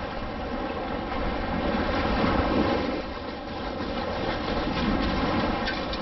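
Shallow surf washing over sand around the feet, with wind buffeting the microphone: a steady rushing noise with a low rumble, swelling a little in the middle.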